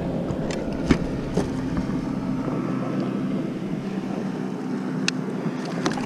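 Steady low engine hum, typical of a motorboat on the river, with a few sharp knocks scattered through it.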